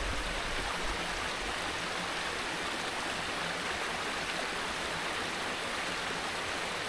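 Running water: a stream rushing steadily.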